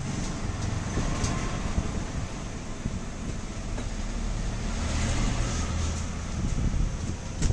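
Steady low rumble of background noise, with a few faint light clicks.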